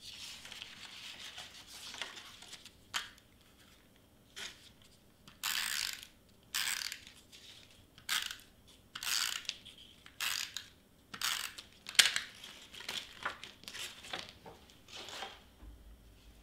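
Hand-held adhesive tape runner drawn along cardstock in a series of short strokes, each a brief dry, clicking rasp, about a dozen in all, with a sharper click about two-thirds of the way through. Paper rustles and is handled in the first couple of seconds.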